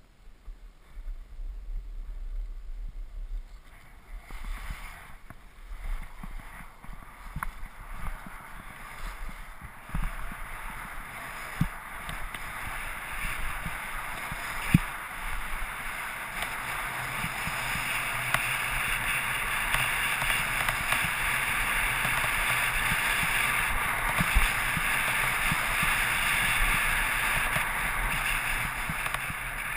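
Skis sliding over packed, groomed snow: an even scraping hiss that builds louder as the skier picks up speed, with wind rumbling on the microphone and a few sharp knocks.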